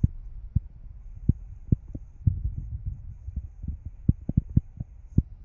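Wind buffeting a phone microphone: a low rumble broken by irregular sharp thumps.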